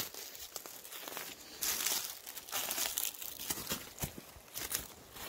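Irregular crunching and crinkling of dry leaves and twigs on the forest floor, loudest about two seconds in.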